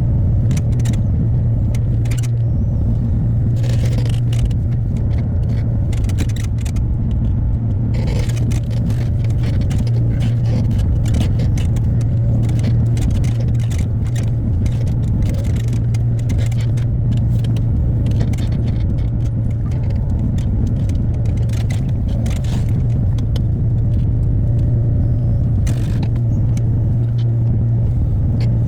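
Hyundai HX60A excavator's diesel engine running steadily at working speed, a constant low drone, with scattered clanks and rattles from the machine as it works.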